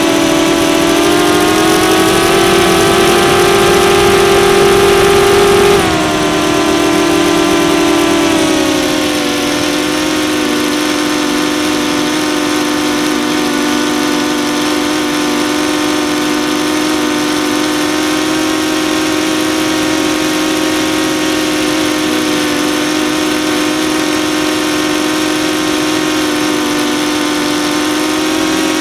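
DJI Phantom 2 quadcopter's four electric motors and propellers buzzing, heard close up from the camera on the drone. The pitch climbs slightly, then drops about six seconds in and holds steady and lower for the rest.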